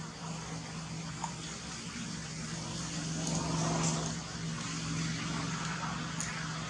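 A steady low hum, like an engine running, over faint background noise; it swells for a moment about halfway through.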